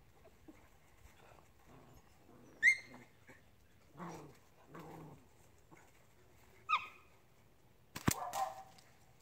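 Dogs yipping and whining in short calls: a high yip about two and a half seconds in, two lower calls around four to five seconds, and another high yip near seven seconds. A sharp snap comes near the end.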